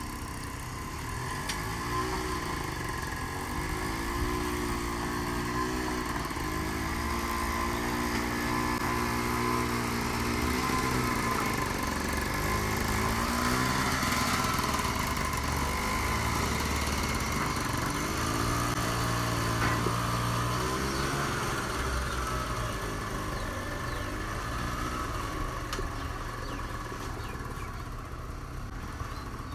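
Engine of a small homemade mini tractor running under heavy load as it pulls a trailer heaped with soil, its note rising and falling again and again as the engine speed changes.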